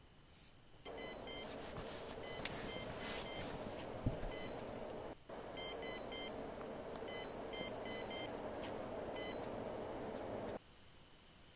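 Electronic carp-fishing bite alarm beeping in short, irregular clusters over a steady hiss, the sign of line being taken on a bite. A single low thump about four seconds in.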